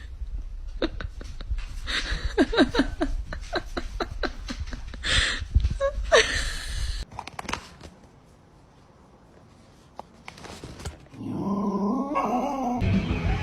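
A dog making short, high whines among many clicks and knocks for about the first half, then it goes quiet.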